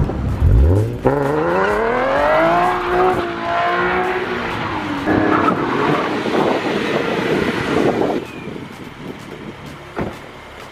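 Nissan 370Z's V6 engine with an aftermarket Y-pipe revving hard as the car accelerates. The pitch climbs over about two seconds, dips and climbs again, then gives way to a rougher, noisier stretch that dies down about eight seconds in.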